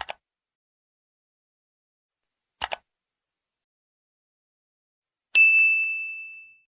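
Two quick double clicks of a computer mouse, then one bright bell ding that rings out and fades over about a second: the stock sound effects of a subscribe-button and notification-bell animation.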